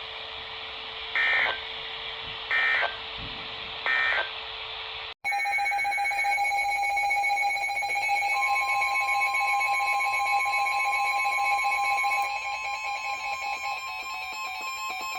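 Emergency Alert System data tones: three short, harsh digital bursts about a second and a half apart, the end-of-message signal after a warning. After a brief dropout comes a steady electronic alert tone at several pitches, a further tone joins about eight seconds in, and the sound turns choppy and pulsing near the end.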